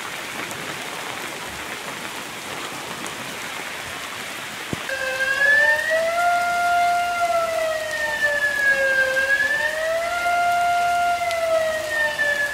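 Steady heavy rain; about five seconds in, a flood warning siren starts up over it, wailing slowly up and down in pitch, sounding the alarm that the river is flooding.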